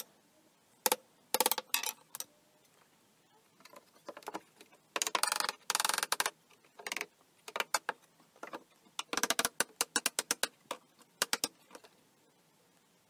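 A small hammer tapping wooden slats down into half-lap joints in a pine frame: a few single knocks, then irregular runs of quick taps, the densest about two-thirds of the way through. The tapping stops near the end.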